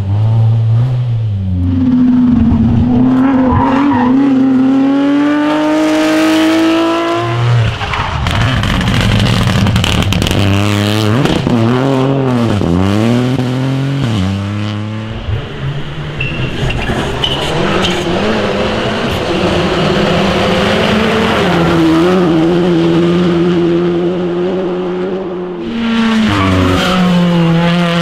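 Rally cars driven flat out, one after another: engines revving high and climbing in pitch through gear changes, with spells of tyre noise.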